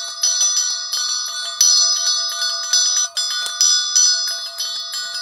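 Elephant bell swung round in a circle so its small round clapper strikes the shell again and again: a quick, uneven run of strikes, several a second, over a steady ringing tone.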